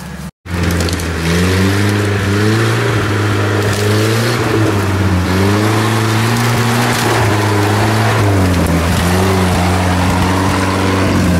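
GAZ-69 off-roader's engine revving up and down again and again as it works its way through muddy ruts, under a steady hiss from the tyres and mud.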